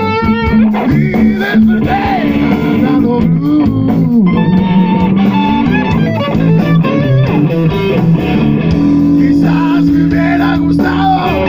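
Live blues band playing loudly: electric guitars, bass and drums.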